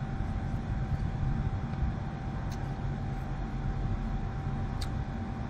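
Steady low hum with a thin unchanging tone above it, and a couple of faint clicks about two and a half and five seconds in.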